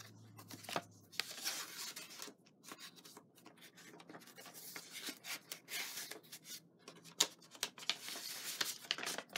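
Card and plastic craft-kit packaging rustling and rubbing as it is handled, with sliding scrapes and many light taps and clicks.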